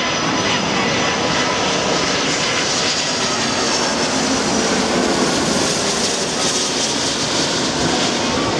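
Twin turbofan engines of a Singapore Airlines Airbus A330 passing low overhead on landing approach, gear down: loud, steady jet noise with a thin high whine that falls slightly in pitch as it goes over.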